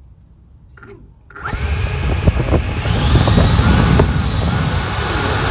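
Electric ducted fan of an FMS Futura RC jet spooling up as throttle is given about a second in: a sudden loud whine with a rushing of air that climbs in pitch, then holds steady.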